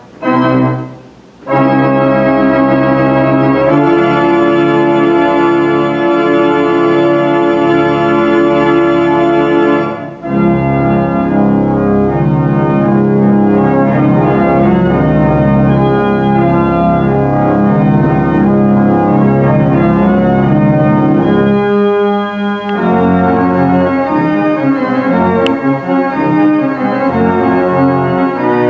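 The 1,972-pipe Aeolian pipe organ playing. It opens with a few short chords, then holds one long chord for about eight seconds, then moves into a busier passage of shifting notes over a full sustained bass.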